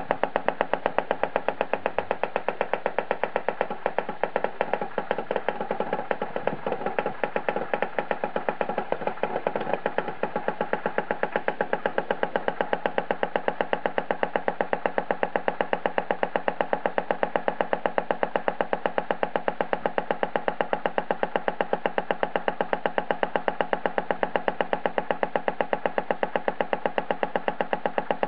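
Greiner Vibrograf B200A watch timing machine running, ticking out a watch's beat as rapid, perfectly even clicks, several a second, over a steady hum. From about four to ten seconds in there is some extra, uneven noise.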